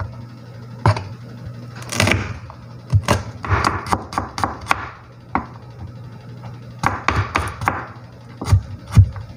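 Kitchen knife chopping garlic cloves and chillies on a plastic cutting board: quick runs of knocks, with a couple of harder whacks near the end, over a faint steady low hum.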